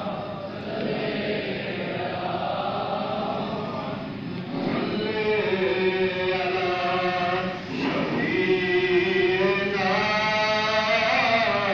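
Melodic chanting of an Islamic supplication (dua), sung in long held phrases that slowly rise and fall, growing louder and clearer about four and a half seconds in.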